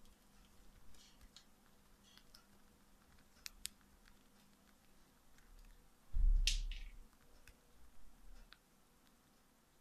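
Cockatiel beak nibbling and cracking seeds from a seed treat held in the fingers: faint, scattered small clicks and crunches, with two sharper clicks about three and a half seconds in. About six seconds in comes a louder thump with a brief rustle.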